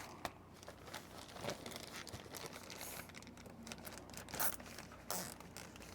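Thin plastic steam-bending bag crinkling and rustling in irregular small crackles as it is handled and zip-tied around the frame, with a couple of louder rustles near the end.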